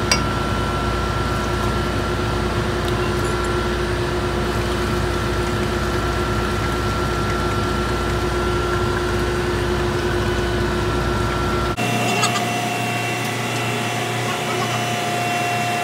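Steady drone of running engine-room machinery with a few steady whining tones. About twelve seconds in, the drone and its tones change abruptly where the recording cuts, and a few faint clicks sound over it.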